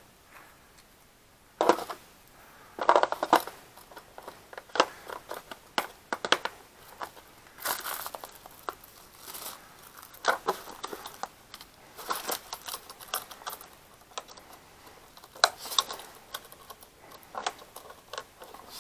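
Handling noise from a compression gauge and its metal adapters being put away in a hard plastic carrying case: irregular clicks, knocks and rattles of metal fittings against plastic, spread over the whole stretch with several sharper knocks.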